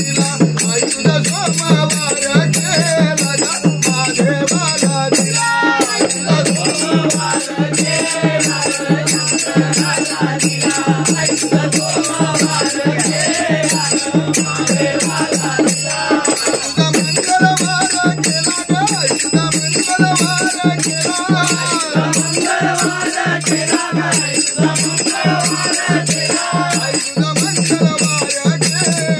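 Men singing a devotional bhajan together over a dholak hand drum and jingling rattle-like percussion keeping a fast, steady beat.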